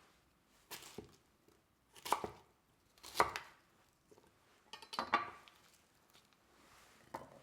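Large sharp knife cutting pineapple into chunks on a chopping board: about five separate cuts, each a short crunching stroke, spaced a second or more apart.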